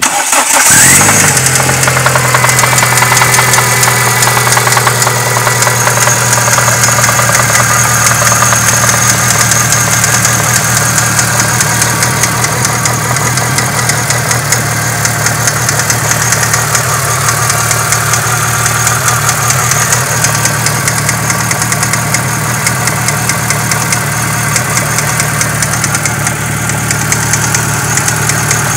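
Renault F4R 2.0-litre 16-valve four-cylinder petrol engine catching right at the start, rising briefly, then idling steadily with a knock from inside. The owner hears a valve tapping and something like a worn connecting-rod bearing.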